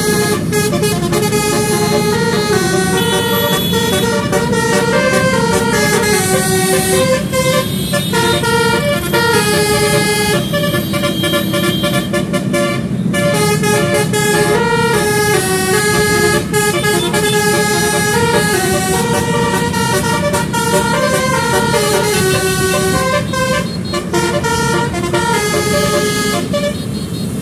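Multi-tone telolet horns on a basuri car playing a tune, note after note, over a low steady rumble of engine and road.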